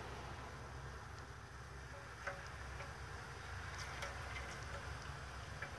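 The last thin stream of motor oil trickling into an empty steel oil pan fades out right at the start. Then a few faint light clicks and taps come as the plastic oil jug is handled, over a steady low hum.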